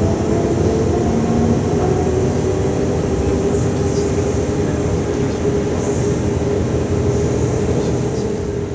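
Z2N double-deck electric multiple unit running past along the platform: a steady rumble of wheels on rails with a low running hum, easing off slightly near the end.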